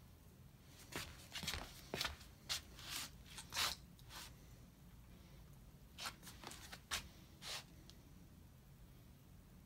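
A run of short, soft scuffing and rustling sounds, about a dozen over three seconds, then a pause and a few more.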